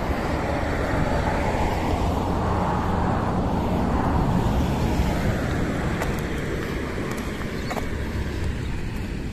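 Road traffic noise: a passing vehicle's tyre and engine noise swells and fades over a few seconds, over a steady low rumble.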